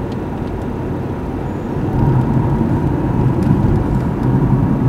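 A car driving, heard from inside the cabin: engine and tyre noise as a steady low rumble that gets louder about two seconds in.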